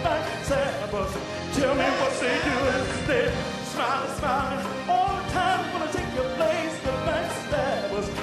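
Live soul band playing, with drums, electric guitars and keyboards, and wavering sung vocals over it.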